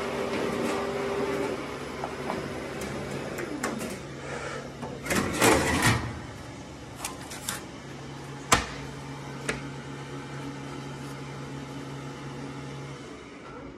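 Xerox Color C70 production printer and YBF booklet maker finisher running: a steady mechanical hum with scattered clicks and clunks of paper handling. The loudest clatter comes about five to six seconds in, a sharp knock follows about eight and a half seconds in, and the hum stops near the end.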